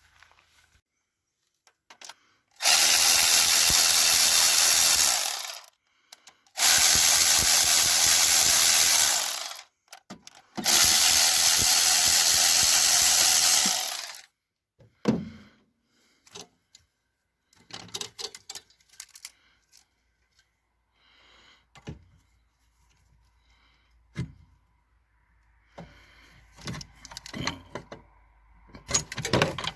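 Handheld power tool run in three steady bursts of about three seconds each, a second apart, followed by scattered light clicks and knocks.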